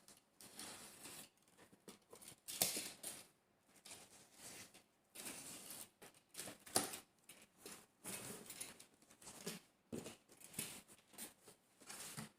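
Parts and packaging being handled: irregular rustling and scraping, with a couple of sharp clicks.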